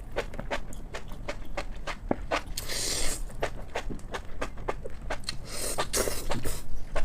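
Close-miked eating: chewing with many quick wet mouth clicks and smacks. Two brief louder, noisier bursts come about three and six seconds in.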